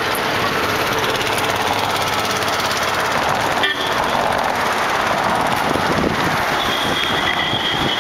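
Steady running noise of a vehicle in motion, heard from on board as engine, road and wind noise. A thin high-pitched tone joins about a second before the end.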